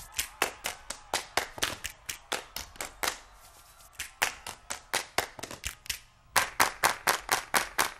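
A group clapping out a fast, even rhythm, about four to five claps a second, as body percussion. The claps break off briefly about three seconds in and again about six seconds in, then come back quicker.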